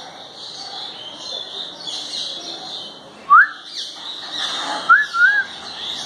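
Two loud, clear whistles over continuous high-pitched chirping of small birds. A quick rising whistle comes about three seconds in, and a wavering two-part whistle comes near the end.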